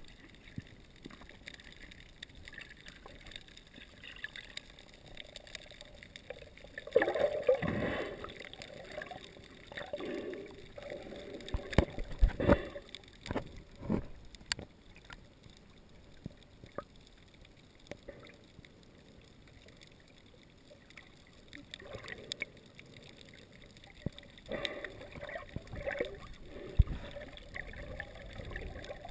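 Water sloshing and gurgling, heard through a camera held underwater at the surface, with swells of bubbling and sharp knocks and clicks from handling. The loudest stretches come about seven seconds in, around twelve to fourteen seconds, and again after twenty-five seconds.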